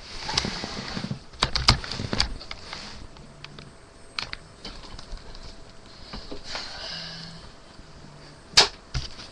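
Handling noise from a webcam being moved: scattered knocks and clicks with brief rustling, busiest in the first couple of seconds, and one sharp loud click near the end.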